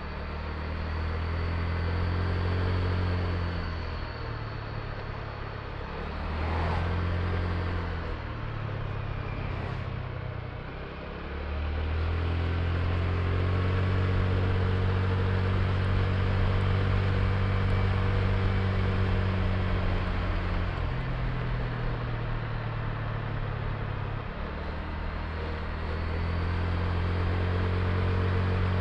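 Honda Click i scooter's single-cylinder engine running under way, its note falling and rising a few times in the first ten seconds or so as the throttle eases and opens, then holding steady and louder, over a steady rushing noise.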